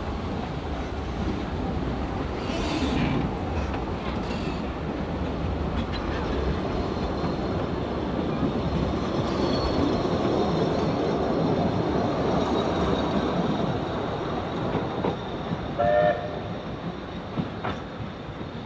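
Narrow-gauge steam train's carriages rolling past close by, the wheels clicking over the rail joints, then fading as the train pulls away. About sixteen seconds in, a brief high-pitched tone cuts through.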